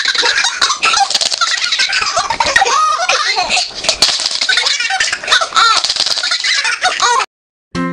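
Baby laughing hard in rapid, breathy fits that come one on top of another, cutting off suddenly near the end.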